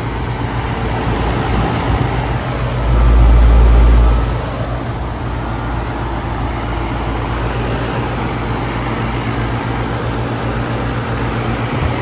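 2021 Tempstar heat pump outdoor unit running, its compressor and condenser fan giving a steady hum. About three seconds in, a low rumble swells for about a second.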